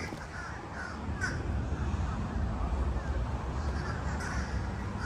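Several short bird calls, crow-like caws, heard over a low steady outdoor rumble.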